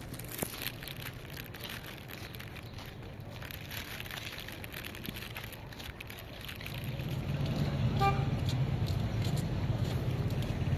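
Road traffic: car engines and tyres rumbling, getting louder about two-thirds of the way in, with a short car horn toot near the end.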